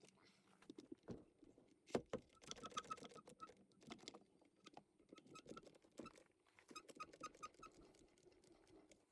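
Faint clicks and knocks of hand tools working a tire bead off its rim, with one sharper knock about two seconds in. Two runs of quick, high squeaks come in between the knocks.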